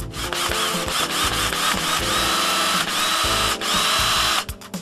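Power drill running in one long burst, its whine wavering in pitch, with a brief break shortly before it stops.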